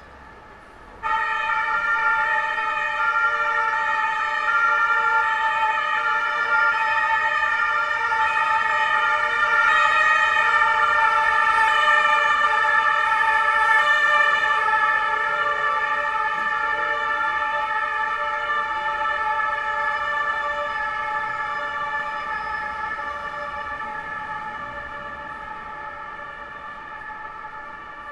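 German police two-tone siren (Martinshorn) of a Berlin police vehicle, cutting in abruptly about a second in. It grows louder, then fades slowly toward the end as the vehicle moves away.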